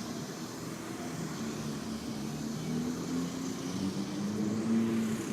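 McLaren MP4-12C's twin-turbo V8 running at low revs in traffic, its note rising slightly and getting louder about four seconds in.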